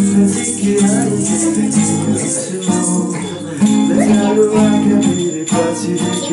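Steel-string acoustic guitar strummed in a steady rhythm, with a small hand-shaken rattle jingling along in time and a man singing.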